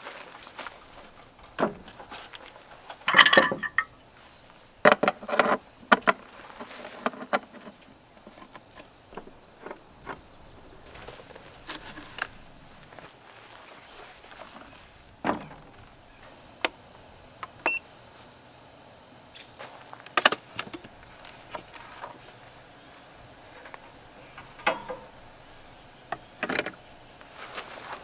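Crickets chirping in a steady, fast-pulsing high trill, with scattered knocks and clatters over it, the loudest a cluster about three to six seconds in.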